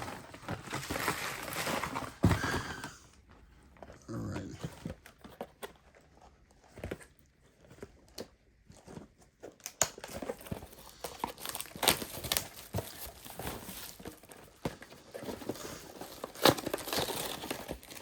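Plastic wrapping on trading card packaging crinkling and tearing, with sharp handling clicks, as a card box and its packs are opened. It is quieter for several seconds in the middle.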